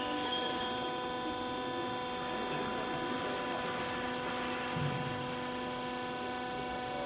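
Vertical hydraulic baler's electric motor and hydraulic pump running with a steady hum.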